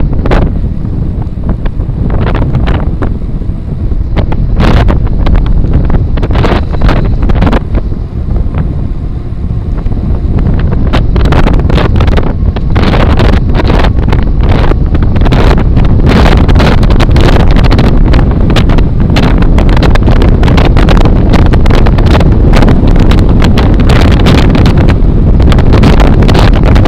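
Loud wind buffeting the microphone of a moving gravel bike, over a constant low rumble, with many sharp rattles and knocks from the bike jolting over rough trail that come much more thickly from about halfway through.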